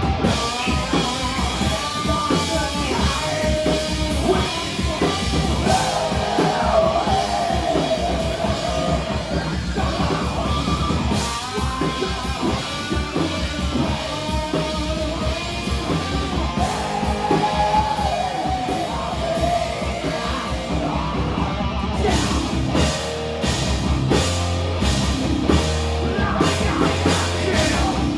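Heavy metal band playing live: distorted guitars, drum kit and a singer's yelled vocals. About two thirds of the way in, the vocal line drops out and the drums settle into a steady, even beat.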